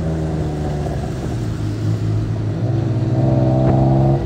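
Tuk-tuk engine running under way, its note rising and getting louder as it accelerates about two-thirds of the way in, then dropping off abruptly near the end.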